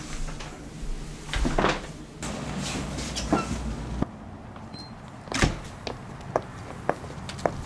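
Rustling and thumps of people moving about, then a door knocking shut about halfway through and footsteps on the front steps.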